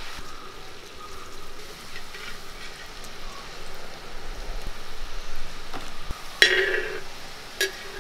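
Urad dal murukku dough deep-frying in hot coconut oil, sizzling and bubbling steadily. Two short, louder sounds cut in near the end.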